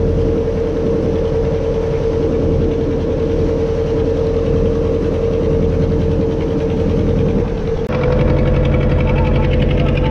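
Outboard motor of a small wooden boat running at a steady cruising speed, a loud even drone with a constant whine. About eight seconds in, the sound changes abruptly to a slightly higher, busier engine tone.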